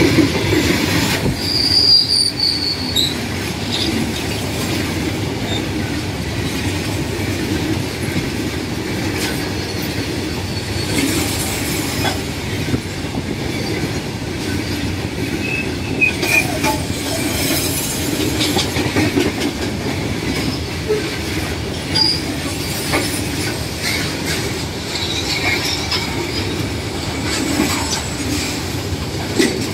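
Loaded-rake BCNAM covered freight wagons rolling past at close range: a steady rumble of steel wheels on rail, with scattered clacks and a few brief high-pitched wheel squeals.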